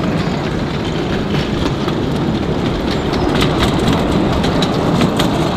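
Passenger carriages of a 10¼-inch gauge miniature railway rolling past, a steady rumble of wheels on the rails with scattered sharp clicks.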